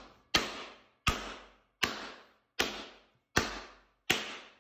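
A teardrop-headed shaping mallet striking a sheet-metal panel laid over a leather shot bag, six even blows about one every three-quarters of a second, each fading quickly. The blows stretch the metal into the bag, putting permanent shape into the panel.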